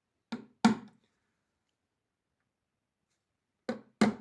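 Sharp knocks on wood, struck in two pairs: a pair about half a second in and another pair near the end. They fit hammer taps punching starter holes for the drawer-slide screws.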